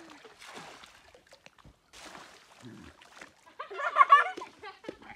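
Water splashing and sloshing as a bucket is scooped and poured in a shallow pond, then a goat bleats loudly about four seconds in.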